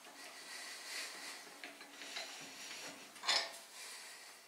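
Light metal clinks and scrapes as a steel V-block is nudged into alignment on a machine table, with one louder knock about three seconds in.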